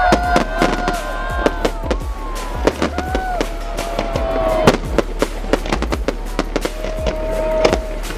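Fireworks display: aerial shells and rockets bursting in a rapid, irregular string of sharp bangs and crackles.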